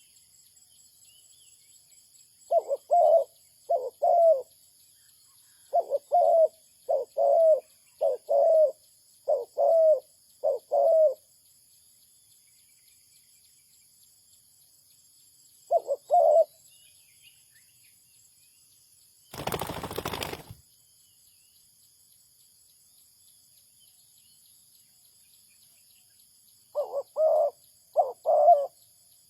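Spotted dove cooing: short low coos grouped in phrases, separated by pauses of several seconds. About two-thirds of the way through there is a one-second burst of rustling noise.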